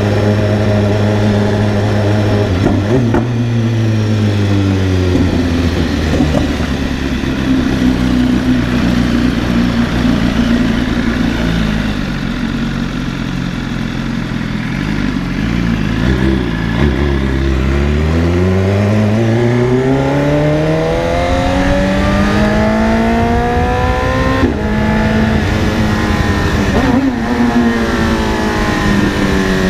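BMW S1000RR inline-four engine under way. The engine note falls and runs low for a while. From about two-thirds of the way in it rises again through a couple of quick gear changes, then drops off near the end.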